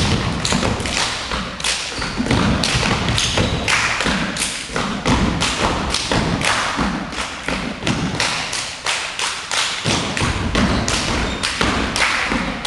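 Steppers stomping and hopping in unison on a hardwood gym floor: a fast run of sharp thuds, about three a second, echoing in the hall.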